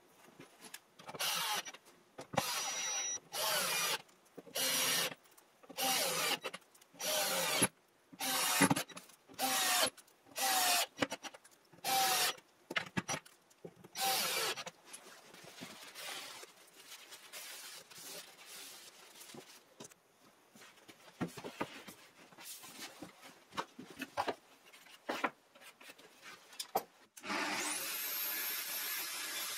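Cordless drill-driver driving screws through a wooden batten into OSB: about a dozen short motor whines of under a second each, roughly one a second, for the first fifteen seconds, followed by quieter handling sounds. About 27 seconds in, a track saw with its dust extractor starts running steadily with a high whine.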